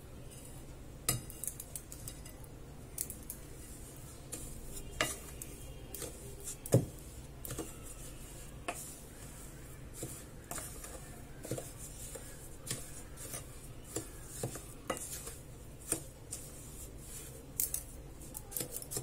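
Spatula stirring powdered sugar into ghee-roasted flour in a glass bowl, with irregular light knocks and clinks as it strikes the glass and the mixture scrapes round.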